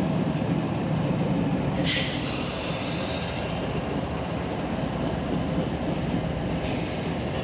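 Intermodal freight train rolling past at close range, its container cars rumbling steadily on the rails. A brief hiss comes about two seconds in.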